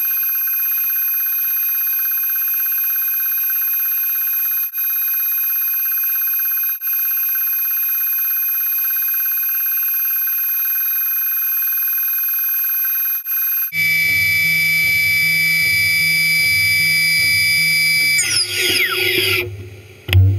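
High-speed spindle of a CNC machining centre running with a steady whine of several high tones. About two-thirds in the sound switches abruptly to a different whine over a low hum. Near the end the pitch glides and the sound turns uneven as the spindle changes speed.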